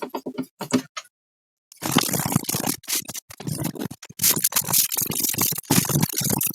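Clicks, scrapes and rattles of the plastic casing being handled and its screws put back in, broken by a short dead gap about a second in.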